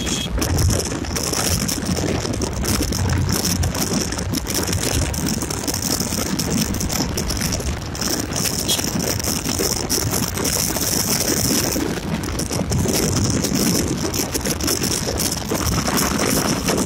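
Yamaha Gladiator 125 cc single-cylinder motorcycle running steadily at road speed, heard from the rider's seat, with the engine mixed into a constant rush of wind on the microphone.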